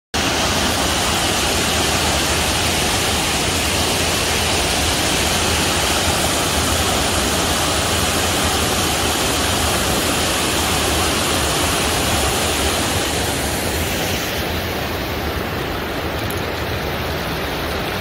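Water pouring over a low concrete weir on a mountain stream: a steady, loud rushing. About 14 seconds in, it turns a little quieter and duller.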